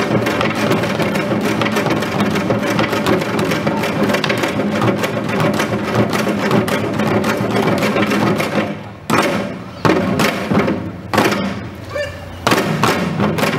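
An ensemble of janggo, the Korean hourglass drums, plays a fast, dense rhythm. About eight and a half seconds in, it breaks into single accented strokes with short pauses between them.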